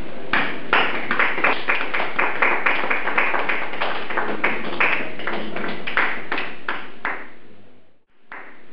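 A rapid run of sharp taps, about four a second, growing fainter towards the end, then the sound drops out briefly.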